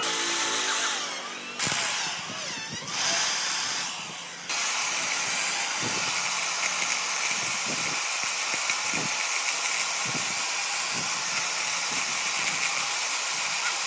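Power tools working wood, heard in a few short cut-together clips. The longest, from about four and a half seconds in, is a steady hissing whir with a few light knocks.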